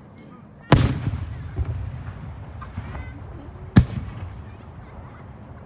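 Aerial firework shells bursting: two loud booms about three seconds apart, the first trailing a long rumbling echo.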